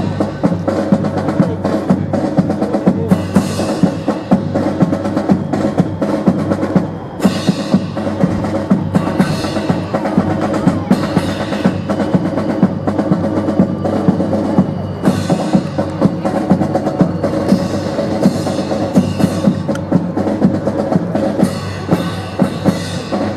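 Drum-led music with snare rolls and bass drum, cut through by many sharp clacks and knocks.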